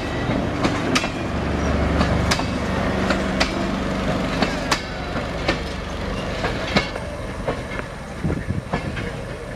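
Passenger carriages of a tourist train rolling slowly past, their wheels clicking irregularly over the rail joints in a clickety-clack that grows a little fainter as the last van draws away.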